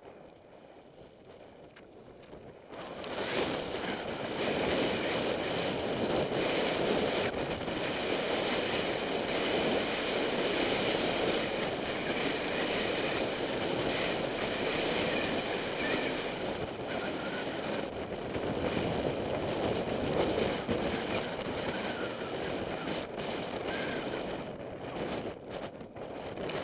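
Steady rushing of wind buffeting an action camera's microphone, mixed with mountain-bike tyres rolling over loose gravel as the bike moves along a stony track. It comes in about three seconds in.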